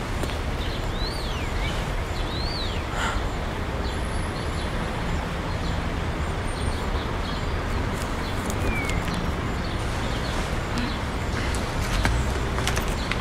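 Steady city traffic ambience, an even hum with a low rumble, with a few short bird chirps, two early on and one more later.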